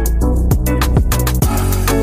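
Background music: a track with a steady drum beat over deep bass notes.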